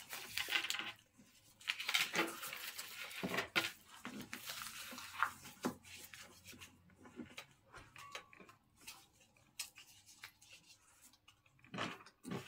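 Small paper slips rustling and crinkling as they are folded by hand, with light clicks and knocks on plates and the table. The rustling is busiest in the first half, with sparser clicks later.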